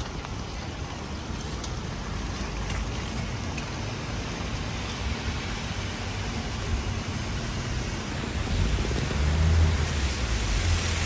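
Steady hiss of rain falling on a wet city street. A low rumble swells in the last few seconds.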